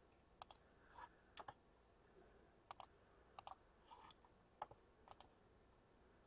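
Faint, sharp computer mouse clicks, most in quick pairs, about seven times spread over a few seconds.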